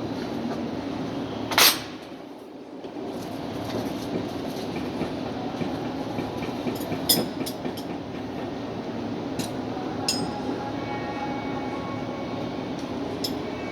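Steady rumble of running machinery with sharp metallic clicks and clinks from hand tools on the engine starter; the loudest is a single sharp click about a second and a half in, with a few more later.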